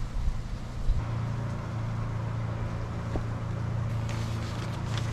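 Wind buffeting the microphone, then from about a second in a steady low engine hum. Near the end, thin rice paper crackles as it is peeled off the inked fish.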